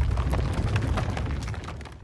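Grinding, crackling stress sound effect: a heavy low rumble with many small cracks and creaks through it, fading away near the end.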